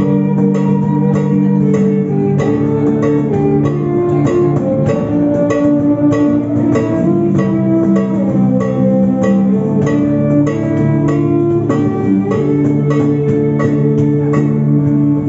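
Instrumental music on plucked strings, guitar-like, with sustained low notes under regularly plucked higher notes.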